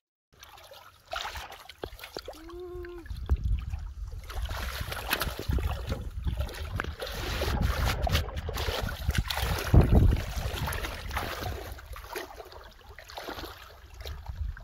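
Shallow muddy water splashing and sloshing irregularly as a boy wades and grabs at a fish by hand, with the biggest splash near ten seconds in. A low rumble of wind on the microphone runs under it, and a short pitched call is heard about two and a half seconds in.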